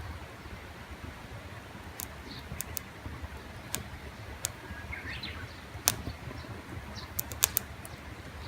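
Wood campfire crackling, with irregular sharp pops and snaps, a few louder pops in the second half.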